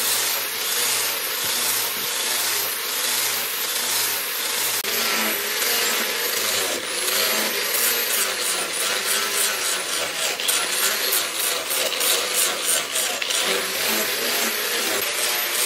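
Electric angle grinder with a sanding disc running and grinding into a Thnong wood machete handle, shaping it. A continuous rasping grind, its whine wavering up and down in pitch in the second half.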